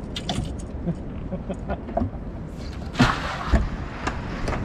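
Handling noises on a fibreglass boat deck as a caught redfish is put into a bucket: scattered small knocks and clicks, a short rustling, splashing burst about three seconds in, and a sharp thump just after, over a steady low rumble.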